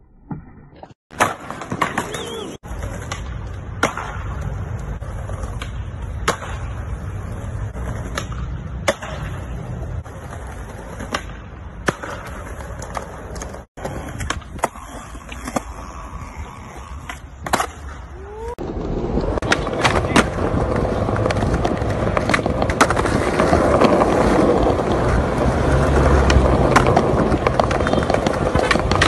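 Skateboard wheels rolling over concrete and pavement, with sharp clacks of the board popping and landing at irregular intervals. From a little past halfway the rolling becomes louder and steadier.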